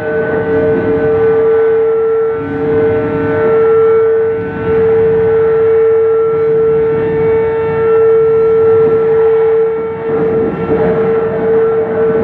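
Loud, steady amplified drone held on one pitch, with fainter higher tones layered above it; the level dips briefly a few times.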